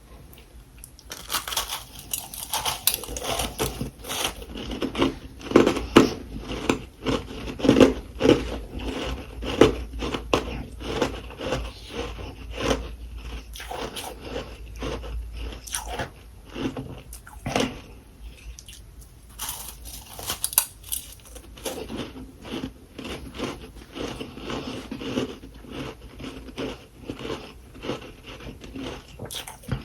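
Freezer frost being bitten and chewed close to the microphone: dense, rapid crunching that starts about a second in, with a short pause a little past halfway before the crunching resumes.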